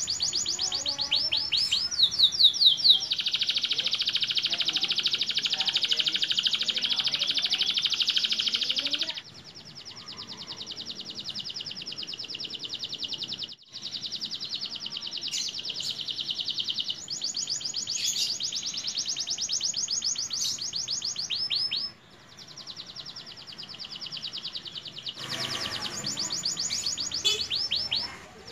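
Young canary singing long, high, rapid trilled phrases almost without a break, loudest in the first few seconds, with short pauses about halfway and two-thirds of the way through. The bird has just come into full adult song and already carries a learned repertoire of imitated phrases.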